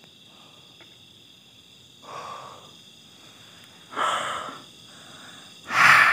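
Three heavy, noisy breaths, each louder than the last, about two seconds apart. Steady insect chirring runs underneath.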